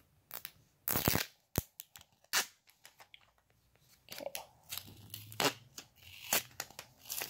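Paper sticker being peeled and torn off a cardboard phone box: a series of short rips and crinkles, the loudest about a second in.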